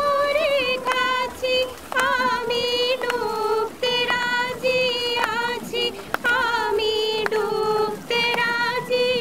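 A woman singing a melodic song in a high voice with ornamented, wavering notes, to hand claps about once a second.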